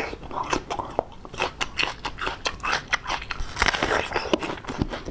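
Close-miked eating: a person biting and chewing, with many quick wet clicks and crunches.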